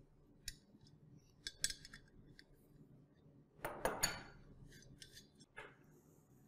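Light metallic clicks and clinks of bolts being worked out of a metal pole-mount bracket, then a louder clatter about four seconds in as a steel wrench is set down on a wooden workbench.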